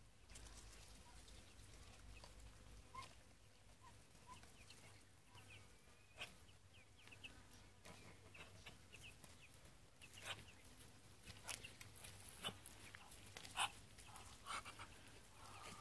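Faint, scattered cheeping of ducklings, with a few sharp ticks in the last few seconds.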